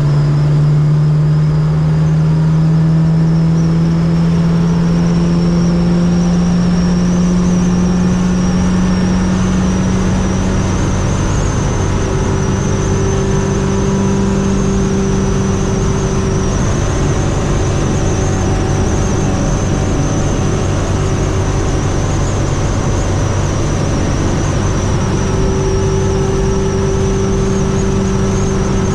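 Fiat 600 with a swapped-in 1.6-litre four-cylinder engine under way at motorway speed. The engine note climbs slowly over the first ten seconds, then holds steady over road and wind noise, with a thin high whine throughout.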